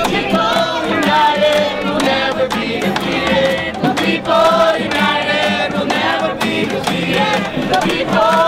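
A group of people singing a song together, with an acoustic guitar being strummed along.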